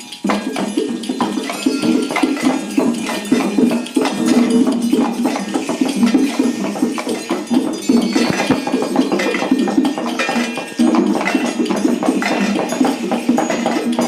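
A group playing hand percussion instruments together: a loud, dense, continuous clatter of many overlapping strikes.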